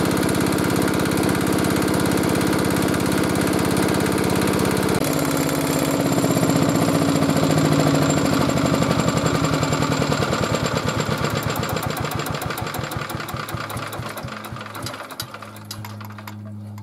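Old belt-driven engine generator running steadily on its new V-belt, then shut off. Its beats slow and spread apart as it winds down, coasting almost to a stop near the end.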